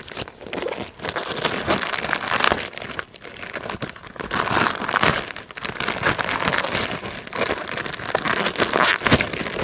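Plastic packaging crinkling and rustling continuously, with many sharp crackles, as an item is unpacked from its bag.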